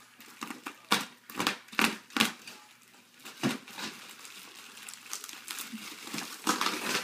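A yellow padded mailer and the plastic bubble wrap inside it crinkling and crumpling as they are handled and pulled open, with several sharp rustles in the first few seconds and steadier crinkling after.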